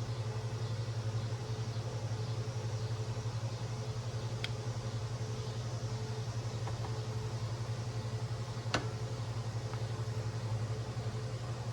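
A steady low hum, with two light clicks partway through, typical of small plastic parts being handled during assembly.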